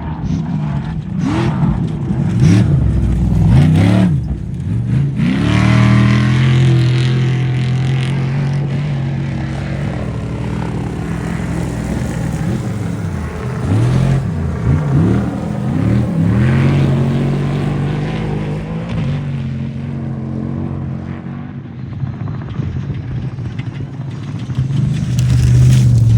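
Off-road race vehicle engines running hard, the pitch climbing and dropping again and again as they rev, shift and lift off, over a steady engine hum.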